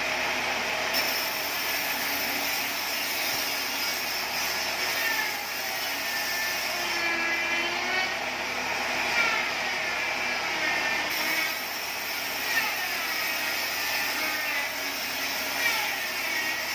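Band saw ripping teak into thin roofing battens: a steady machine noise with a whining pitch that wavers up and down as the wood is fed through the blade.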